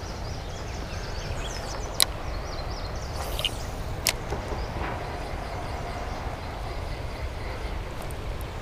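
Steady low outdoor rumble, with two sharp clicks about two and four seconds in, as a spinning rod and reel is cast.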